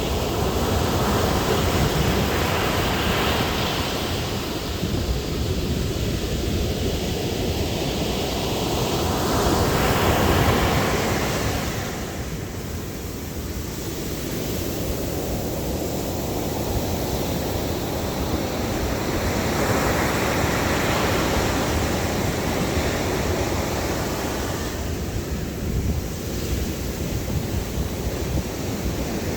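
Ocean waves breaking and washing up on a beach: a steady rush of surf that swells as each wave breaks, with a few waves spread several seconds apart.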